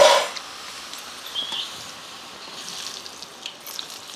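Pappadams deep-frying in hot oil in an iron kadai over a wood fire, sizzling loudest at the start and settling into a steady hiss. A short high chirp about a second and a half in.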